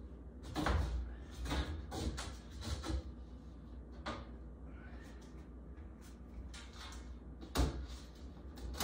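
A wooden shelf board being laid into a metal shelving frame and pushed into place: a run of short knocks and scrapes over the first few seconds, a quieter stretch, then one sharp knock near the end.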